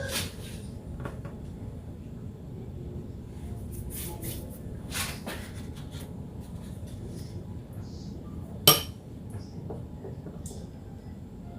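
Dishes and utensils clinking and knocking now and then as they are handled on a worktop, with one sharp clack, the loudest sound, about three-quarters of the way through.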